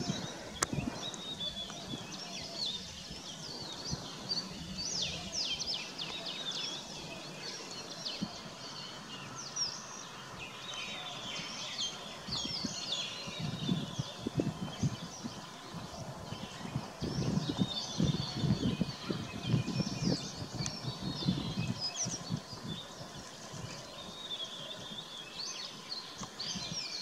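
Small wild birds chirping and singing in a mixed chorus, with many short high chirps and trills overlapping. A low rumble comes and goes through the middle stretch.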